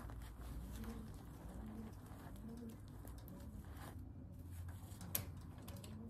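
Feral pigeon cooing softly: short, low, arching coos repeating about once a second. One sharp click about five seconds in.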